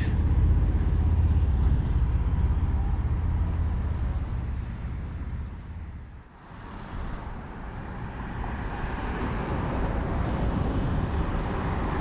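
City road traffic passing: a low rumble of vehicles fades away over the first half, then more traffic builds up again in the second half.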